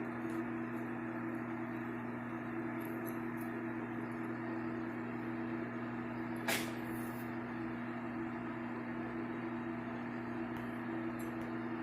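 Microwave oven running: a steady hum with fan noise, and a single sharp click about six and a half seconds in.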